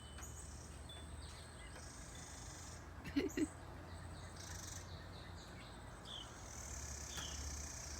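Small birds chirping faintly: three short falling chirps in the second half, over a steady high hiss and low hum. About three seconds in there is one brief low voice-like sound, the loudest thing heard.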